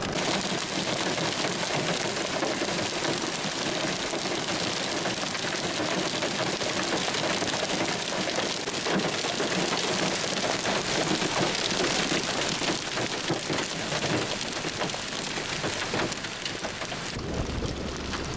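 Hail and heavy rain pelting down, a dense steady clatter of many small impacts. Near the end the clatter gives way to a low rumble of wind on the microphone.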